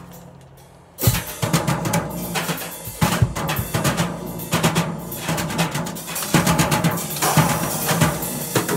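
Acoustic drum kit being played: after the last hits die away, the playing comes back in suddenly about a second in and runs on as a dense stream of drum hits with cymbals ringing over them.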